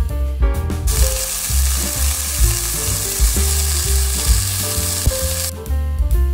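Minced-beef burger patties topped with cheese slices sizzling in a frying pan. The hiss starts abruptly about a second in and cuts off just before the end, over background music with a steady bass line.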